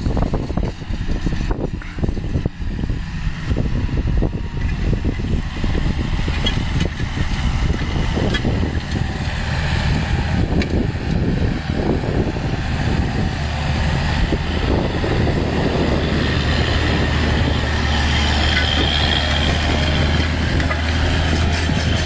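Fendt 926 tractor's diesel engine running under load as it pulls a Väderstad Carrier disc harrow through the soil, growing steadily louder over the second half as it comes close.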